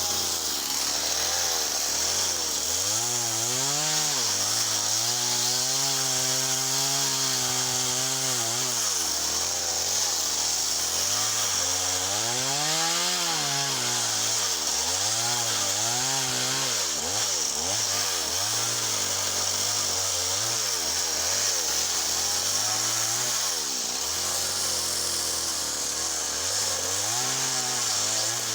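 Small chainsaw cutting softwood, its engine revving up and down over and over. It holds high revs for a few seconds at a time between drops.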